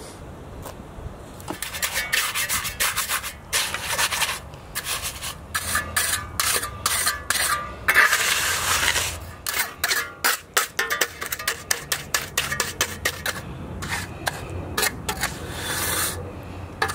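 A hand trowel scraping and rubbing over wet concrete in repeated, irregular strokes as a patch in a concrete deck is spread and smoothed, with one longer stroke about eight seconds in.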